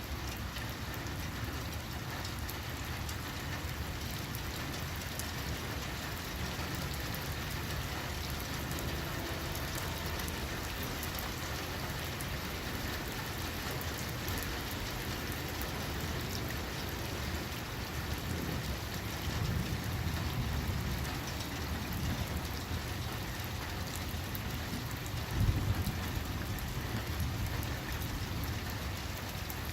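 Steady rain falling, with low rumbles of distant thunder swelling partway through and a sudden, short low thump near the end that is the loudest moment.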